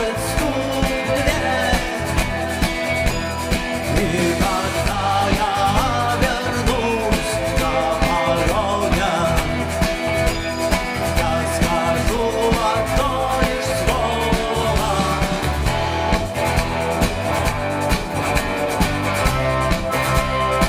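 Live rock band playing: electric guitar, bass and drum kit with a steady beat.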